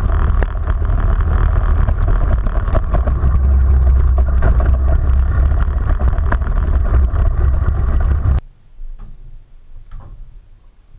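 Polaris Sportsman 500 ATV's single-cylinder engine running as it rides a rough dirt trail, a loud low drone with frequent knocks and rattles from the bumps. About eight seconds in it cuts off suddenly to a much quieter stretch with a faint steady high whine and a few small clicks.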